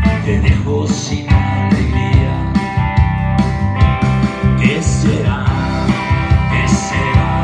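Stratocaster-style electric guitar played through an amplifier in an instrumental passage, over a backing track with a steady drum beat and bass.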